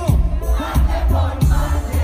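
Loud live reggaeton music over a concert sound system, with a heavy bass and a steady drum beat, and the crowd shouting over it.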